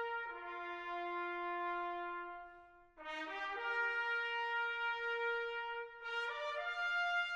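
Background music played on brass instruments: long held chords that change every few seconds.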